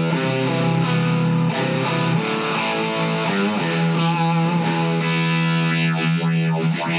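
Electric guitar played through a Vox Valvetronix AD50VT-XL amplifier on its fuzzy Buzzsaw amp model, distorted chords and notes with a phaser sweeping over them.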